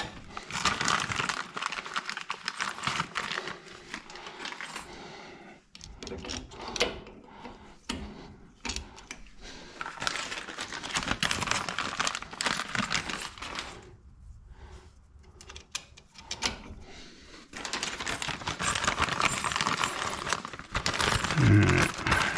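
Small metal hardware and tools clinking and rattling in irregular bursts, with pauses between them: Allen bolts and fittings from a pump mounting kit being handled and fitted.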